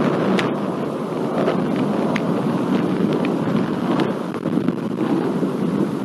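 Thunderstorm ambience: a steady, continuous rumble of rolling thunder, with a few light, sharp ticks scattered through it.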